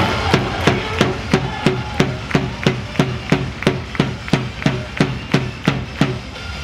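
Hands clapping in unison in a steady rhythm, about three claps a second, about eighteen in all, over a low steady background din.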